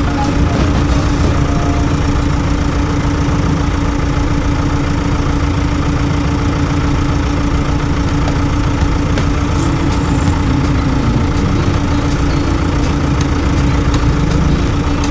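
Vehicle engines idling steadily in stopped traffic: the scooter's own engine and the box truck alongside. Light, regular clicks come in over the second half.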